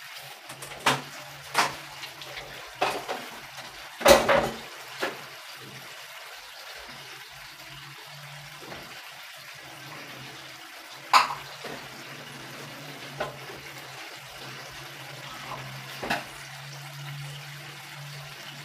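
Metal cookware and utensils clinking and knocking against a pan about eight times at irregular intervals, the loudest knock about four seconds in, over a steady low hum and faint hiss.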